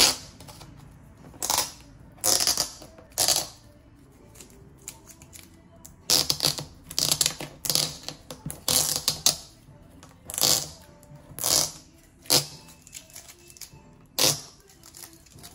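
Plastic shrink wrap and a paper sticker crinkling in a dozen or so short, irregular bursts as the sticker is peeled off the wrapped box and crumpled between the fingers.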